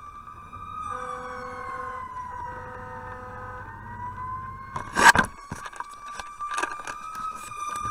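Fire engine siren wailing, heard from inside the cab, its pitch slowly falling and rising. A steadier, lower tone sounds twice in the first half, and about five seconds in there is a loud knock and rustle of the helmet camera being jostled.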